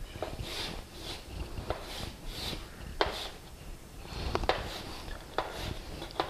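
Chalk drawing straight lines on a chalkboard: a series of short scraping strokes, with a few sharp taps as the chalk strikes the board.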